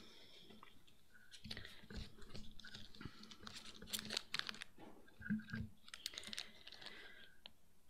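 Paper pages being handled and turned in a folder close to a lectern microphone: a faint, irregular run of crackles and small clicks.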